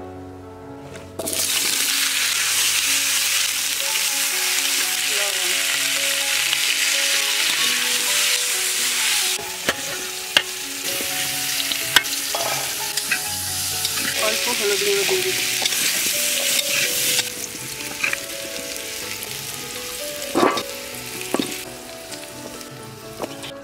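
Food sizzling loudly in hot oil in a pan, starting about a second in and easing off over the second half, with a few sharp clinks along the way.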